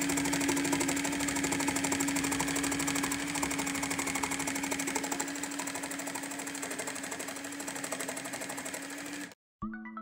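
Cool Maker Sew N Style battery-powered toy sewing machine running: a steady motor hum under a fast, even clatter of the needle stitching felt. It cuts off suddenly about nine seconds in, and electronic music begins just before the end.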